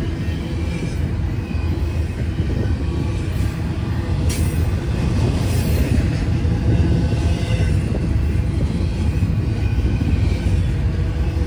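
CSX intermodal freight train rolling past, a steady loud rumble of wheels on the rails.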